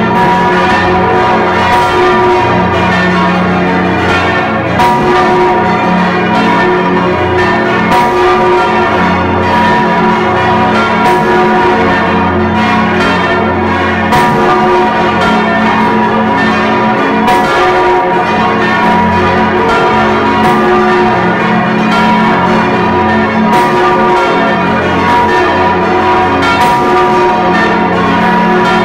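Large bronze church bell, the Stephanus bell of St. Stephan, swinging and struck again and again by its clapper, heard up close from inside the bell chamber. The strokes come at uneven spacing, about one a second, over a loud, continuous ring of many overlapping tones. The recording is damped against the loudness.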